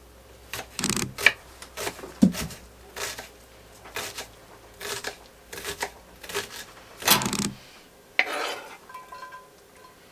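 Kitchen clatter: dishes, pans and utensils knocked and set down on a counter, a dozen or so irregular clanks and clicks.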